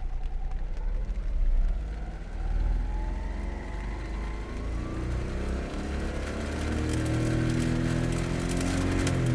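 Honda Beat's three-cylinder engine idling, then revved up slowly and held at higher revs. As the revs climb, a fast high-pitched crackling comes in over the engine, which the owner takes for a torn alternator belt that is not yet fully broken.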